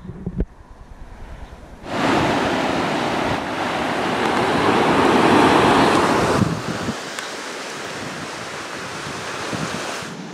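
Ocean surf breaking below the sea cliffs, a steady rushing wash of waves that comes in suddenly about two seconds in, swells, and drops to a softer wash after about six and a half seconds. Quieter wind rumble on the microphone comes before it.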